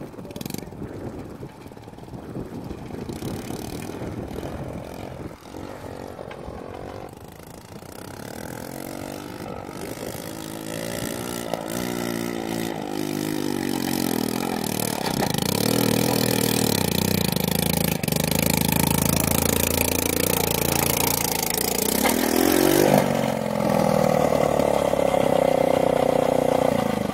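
Honda C90's small single-cylinder four-stroke engine labouring up a steep rocky climb, growing louder as it approaches, its note wavering as the throttle works. Near the end it revs high and steady as the bike bogs down in a rut and goes over; the rider says it lacks the power.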